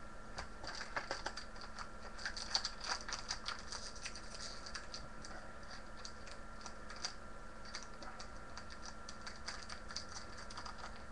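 Trading cards and their pack wrapper being handled: light clicking and crinkling in irregular clusters, busiest in the first few seconds.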